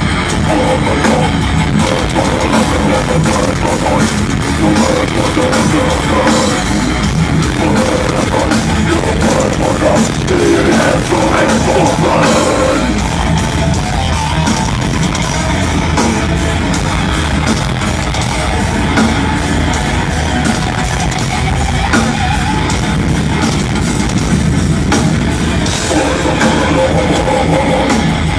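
Heavy metal music with guitars and a drum kit, loud and unbroken.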